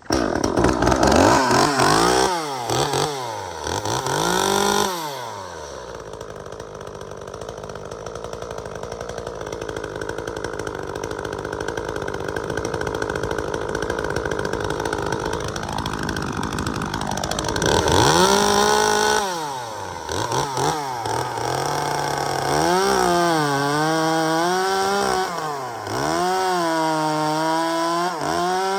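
Two-stroke top-handle chainsaw, freshly repaired with a new primer bulb, revving up and down for a few seconds, then running steadily under load for about twelve seconds as it cuts wood. Near the end it is revved again in quick blips.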